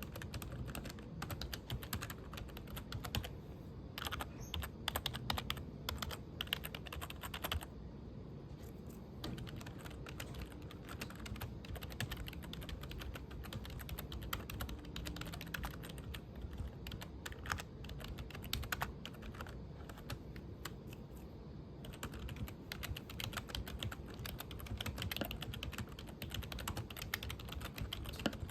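Typing on a computer keyboard: a continuous run of quick key clicks, pausing briefly about eight seconds in and growing denser and louder over the last few seconds.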